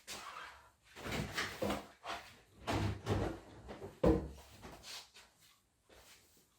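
Irregular clicks, knocks and rattles of the plastic parts of a radio-controlled toy car being handled and fitted back together, loudest about a second in, around three seconds and just after four seconds, then dying away.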